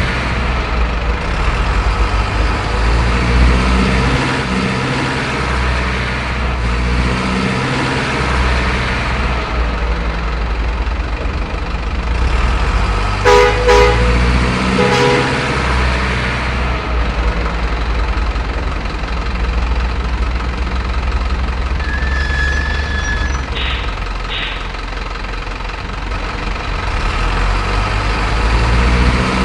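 Truck engine sound running steadily from a remote-control truck, with a few short horn toots around halfway.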